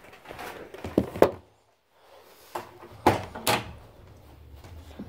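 A few sharp knocks and thumps: two close together about a second in, then two more around three seconds in, with a moment of dead silence between them.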